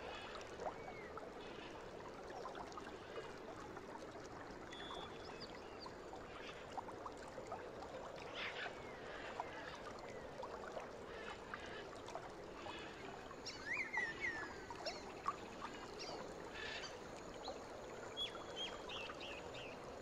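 Nature ambience: water running steadily with scattered short bird chirps, whistles and falling calls, busiest a little past the middle.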